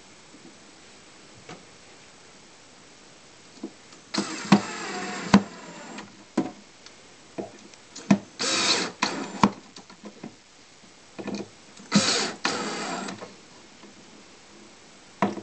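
Cordless drill-driver driving in screws in three short runs, a few seconds apart, with sharp clicks and knocks between them.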